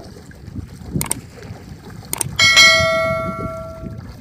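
Subscribe-button sound effect: two mouse clicks about a second apart, then a bell chime that rings and fades over about a second and a half, over low background noise.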